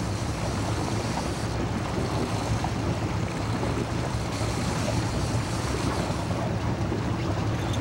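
Fishing boat's engine running steadily at trolling speed, a constant low hum, with wind on the microphone and the wash of waves.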